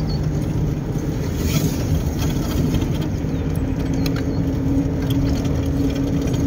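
Steady engine and road noise of a moving vehicle heard from inside the cabin, with a constant low hum.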